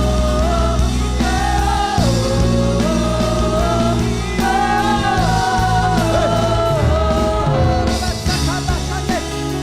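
Worship music with singing: long held sung notes over a steady sustained bass accompaniment.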